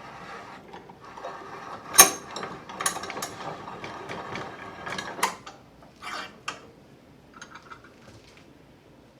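Woodworking vise with aluminium quench plates being worked open and closed: a run of clicking, rattling mechanism noise with a sharp knock about two seconds in, tapering off to a few faint rattles.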